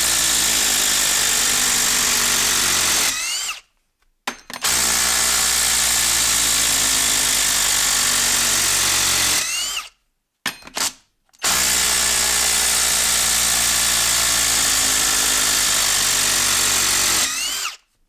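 An 18-volt Ryobi brushless quarter-inch hex impact driver hammering as it backs timber lock screws out of wood, in three runs of about five seconds each, separated by short pauses. A rising whine comes just before each run stops.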